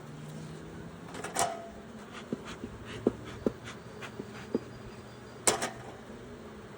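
Honeybee colony buzzing in an open hive, a steady low hum, the bees getting cranky as the frames are disturbed. Scattered sharp clicks and knocks from the hive tool and wooden frames being worked, the loudest about a second and a half in and again near five and a half seconds.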